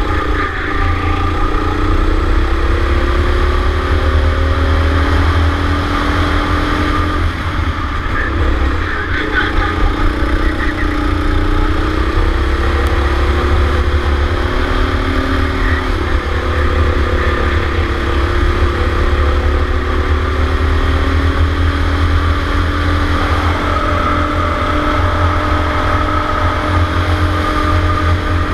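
Go-kart engine heard from on board, its revs climbing and falling again and again as the kart goes through the corners. A heavy low rumble runs underneath.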